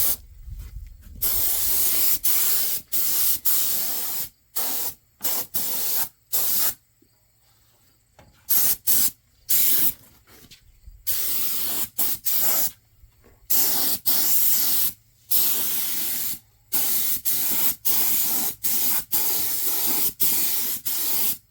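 Paint spray gun spraying a two-part coating onto a truck frame rail: a loud hiss in many short bursts, each cut off sharply as the trigger is released and pulled again.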